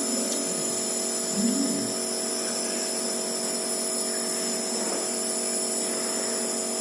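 Nebulizer air compressor running steadily, a small electric pump motor giving an even whine with several steady high tones, while a child breathes the medication through it for a cough.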